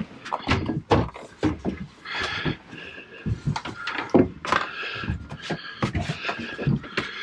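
Knocks and clatter of wooden cabin lockers and fittings being handled, with a high whine coming and going between the knocks.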